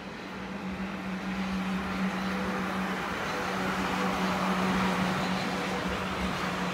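South Western Railway Class 444 Desiro electric multiple unit moving past at close range: wheels running on the rails with a steady hum. The sound swells to its loudest about five seconds in, as the front cars go by.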